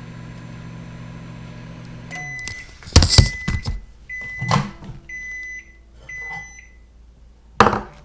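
Microwave oven running with a steady hum that stops about two seconds in as the cycle ends. Its high beeps follow, one and then three more about a second apart, with loud clunks about three seconds in and near the end.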